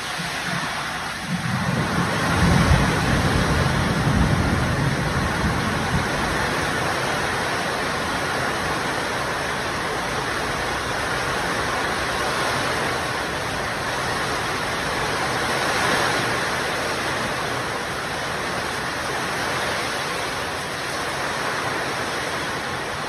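Heavy rain pouring down in a storm, a steady loud hiss of rainfall, with a low rumble swelling in and out during the first few seconds.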